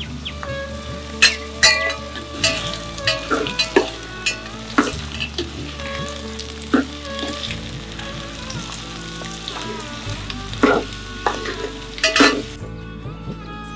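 Mixed vegetables frying and sizzling in a pot while a wooden spatula stirs them, with repeated sharp scrapes and knocks of the spatula against the pot.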